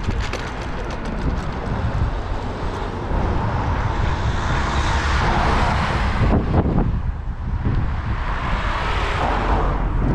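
Cars passing on a wide city road: a steady rush of tyre and engine noise that swells and fades twice, once around the middle and again near the end, as vehicles go by. Wind buffets the microphone with a constant low rumble.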